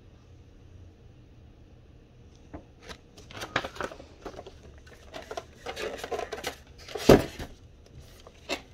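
Unboxing handling noise: a paper instruction sheet rustling and an airsoft M4 rifle being shifted in its styrofoam packaging tray. After a couple of quiet seconds come scattered clicks, rustles and knocks, with one sharp loud knock about seven seconds in.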